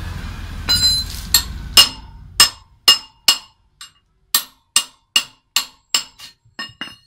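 A hammer striking a steel wrench on a rusted motorcycle front axle nut to break the seized nut loose. About fifteen sharp metallic clanks come two or three a second, each ringing briefly.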